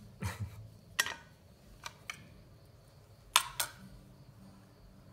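Kitchen utensils being handled: about six sharp clicks and light knocks, irregularly spaced and mostly in quick pairs, over a faint low hum.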